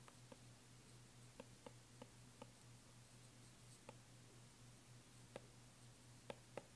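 Faint, irregular taps and clicks of a stylus on a tablet screen during handwriting, over a low steady hum.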